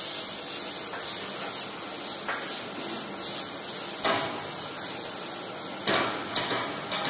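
Morel mushrooms sizzling in hot olive oil in a stainless steel pan as it is tossed over a gas burner, with a few knocks from the pan.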